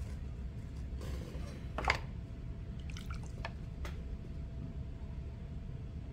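Electric potter's wheel spinning with a steady low hum, under the wet squishing and dripping of slip-covered hands and a sponge working a wet clay cylinder. A short wet squelch about two seconds in is the loudest sound, followed by a few faint clicks.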